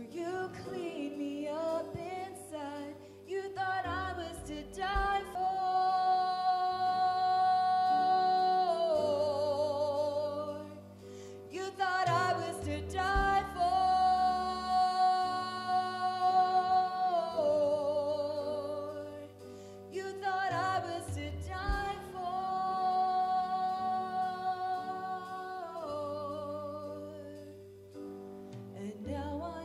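A woman singing a slow worship song with a live band, holding long notes with vibrato over bass guitar, piano and light drums.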